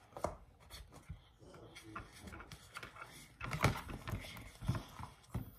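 Quiet clicks and taps of plastic containers being handled on a tabletop, with a few louder knocks between about three and a half and five seconds in.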